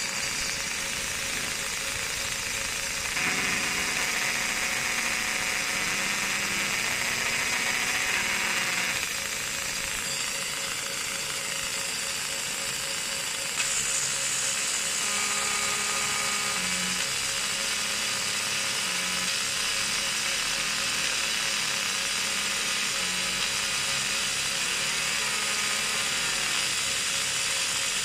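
MOPA fiber laser marker with a 60 W JPT source deep-engraving a metal block: a steady buzzing hiss that shifts in tone a few times, about three seconds in, around nine seconds, and near the middle.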